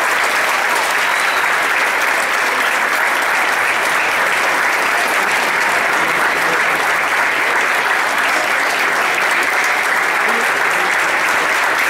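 Concert audience applauding, a steady, dense clapping that holds at an even level.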